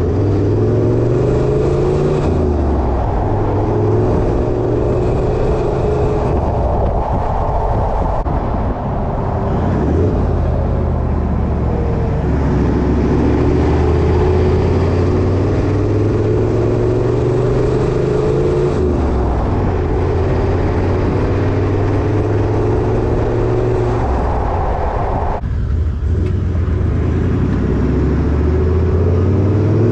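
Toyota Land Cruiser Troop Carrier engine running through a 3.5-inch TORQIT performance exhaust while driving. The pitch climbs under acceleration and drops back several times, as at gear changes, with steadier stretches between.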